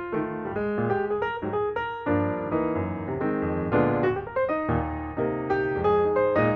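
Background piano music, a steady stream of notes with chords.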